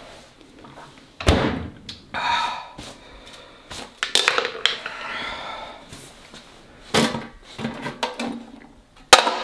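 Kitchen handling sounds: a fridge door thuds shut about a second in, an aluminium drink can crinkles in the hand, and a sharp metallic clank comes near the end from a stainless steel pedal bin.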